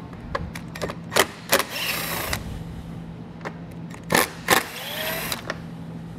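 Cordless driver with a T20 Torx bit backing out screws, running in two short bursts about two seconds apart, each with a few sharp clicks before it. The second burst rises in pitch as the motor spins up.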